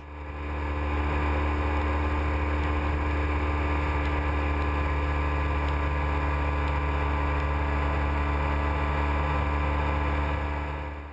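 Motorcycle riding at a steady cruise: a low, even engine drone with road and wind noise. It fades up at the start and fades down near the end.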